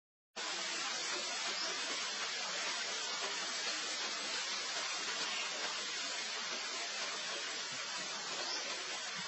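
Steady, even hiss of noise with no distinct events, after a moment of dead silence at the very start.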